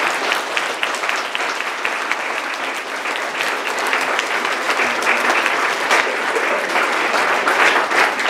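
An audience of schoolchildren applauding, many hands clapping steadily.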